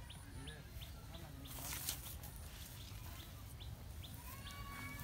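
Small birds chirping in short, sharp, scattered notes over a low background rumble, with a brief rustle a little under two seconds in.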